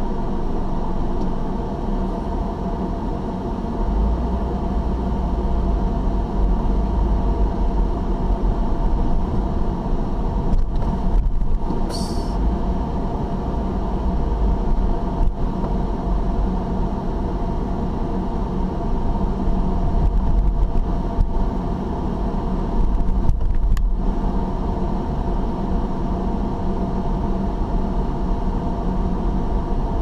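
Car engine and tyre noise heard from inside the cabin while driving: a steady low rumble that grows a little stronger about four seconds in, with a brief high hiss about twelve seconds in.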